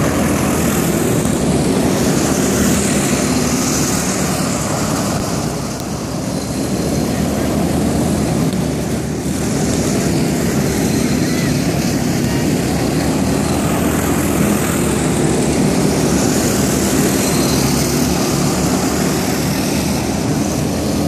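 A car engine running and revving up and down as the car drives laps around a dirt field, the level swelling and dipping as it passes.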